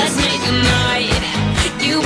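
Live pop music from a band on stage, with a steady beat.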